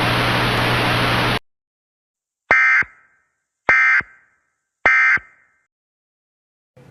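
Steady hiss of noise that cuts off about a second and a half in, then three short, identical warbling data bursts about a second apart: the Emergency Alert System's end-of-message (EOM) SAME tones that close the alert.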